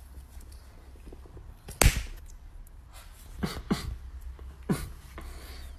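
A few short, sharp thumps and taps over a quiet room, the loudest about two seconds in, then two lighter ones around three and a half seconds and another near five seconds.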